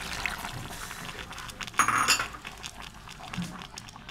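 A metal clink against an aluminium cooking pot about two seconds in, with a high ringing tone, over a steady background hiss.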